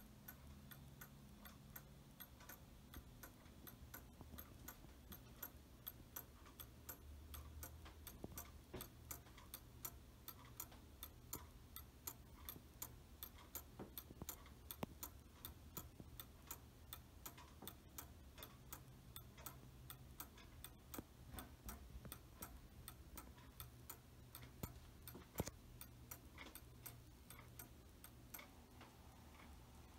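Faint, steady ticking of an antique Sessions mantel clock's bare brass movement, running out of its case with its pendulum swinging, a couple of even ticks a second. One louder click comes near the end.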